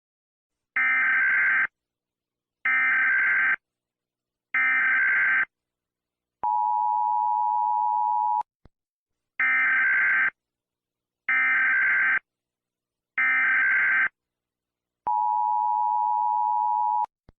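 Emergency Alert System tones: three short bursts of screeching SAME digital header data, followed by a steady electronic attention tone of about two seconds. The whole sequence plays twice.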